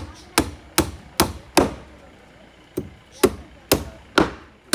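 Hammer blows on timber stair formwork (shuttering): sharp, ringing strikes about two or three a second. A run of about five comes first, then a pause of about a second, then another run.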